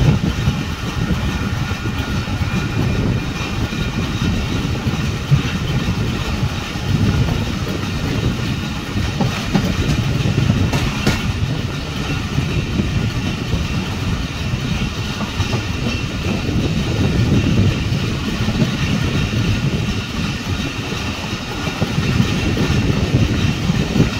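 Awam Express passenger train running along the line, heard from aboard: a steady rumble of wheels on the track, with a few sharper clicks near the middle.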